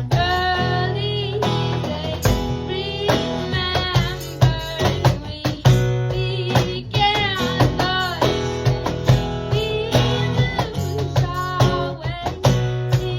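Guitar playing a melodic line over a cajon beat, the cajon's hand strikes landing steadily throughout; some guitar notes bend in pitch.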